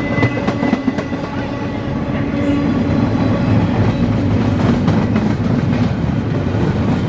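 Freight cars of a long CSX intermodal train rolling past: a steady loud rumble with wheels clicking over rail joints.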